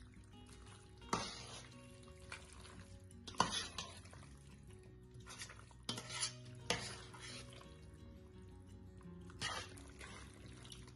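A metal spoon stirring rigatoni in béchamel sauce in a stainless steel pot, with several scrapes and clinks of the spoon against the pot, over faint background music.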